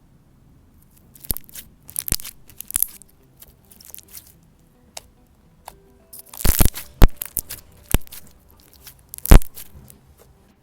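Sugar scrub slime being pressed and stretched by hand, giving irregular sharp crackling pops and crunches, the loudest bunched around six to seven seconds in and a single loud pop near nine seconds.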